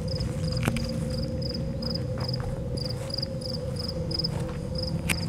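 A cricket chirping steadily in short pulsed chirps, about two or three a second, over a steady lower hum and a low rumble. There are a couple of sharp clicks, one about half a second in and one near the end.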